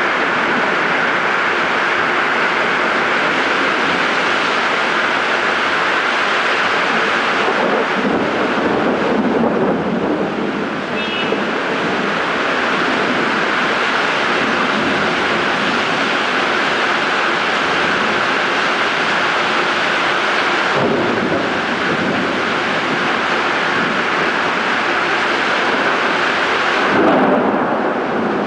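Heavy rain pouring steadily in a rainstorm. A deeper rumble swells twice, around eight seconds in and near the end.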